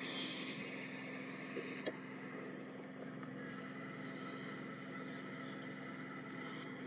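A steady low motor hum under a light hiss of wind, with a couple of faint clicks just before two seconds in.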